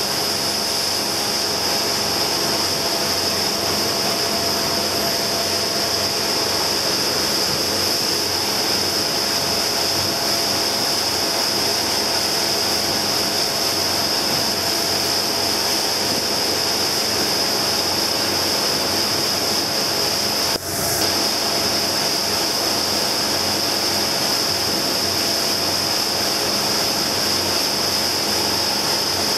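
Motorboat under way at speed: steady engine noise mixed with the rush of the churning wake and wind, unbroken apart from a brief dip about two-thirds of the way through.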